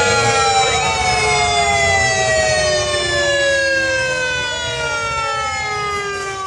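Emergency vehicle siren holding one long wail that slowly falls in pitch, with two short rising whoops over it, above the low running of police motorcycle engines. It fades slightly near the end.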